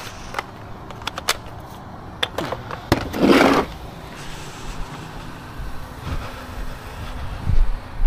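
Hand tools being handled: scattered sharp clicks and clinks, then a short scrape about three seconds in.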